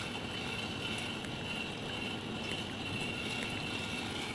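Smart toilet's bidet spray wand spraying water in rear-wash mode: a steady hiss, with a few faint ticks.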